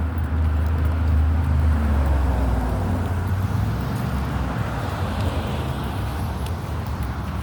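A vehicle running: a steady low rumble with road-type noise, the rumble easing about three seconds in.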